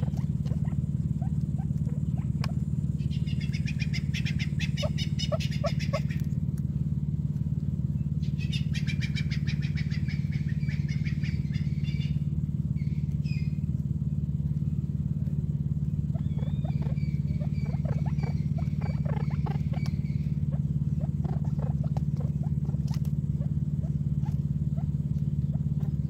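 A steady low hum under birds calling: two bursts of rapid chattering calls, about three seconds in and again from about eight to twelve seconds, and a steadier, higher call from about sixteen to twenty seconds. Soft scattered taps of beaks pecking at a plastic seed feeder run underneath.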